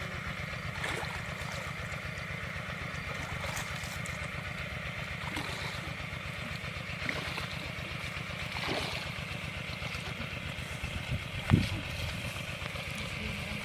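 A small engine running steadily with a fast, even beat, and one sharp knock near the end.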